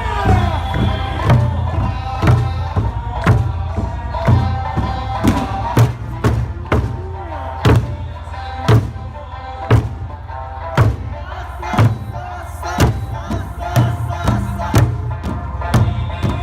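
Eisa drum dance: big Okinawan drums struck in unison about once a second over lively Okinawan folk music of sanshin and singing.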